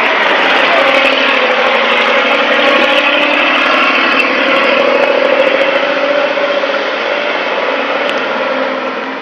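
Heavy logging truck's engine running hard as it passes close by hauling logs, the noise fading away over the last couple of seconds as it pulls off.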